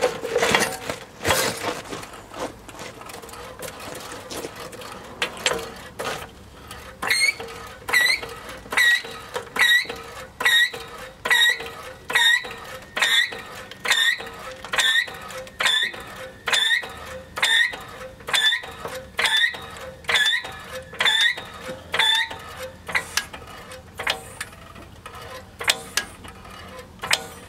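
Three-ton hydraulic floor jack being pumped by its handle under load, each stroke giving a click and a short squeak, a little more than one stroke a second. Knocks and clicks come first as the jack is set in place, and the squeaking stops a few seconds before the end while clicks go on.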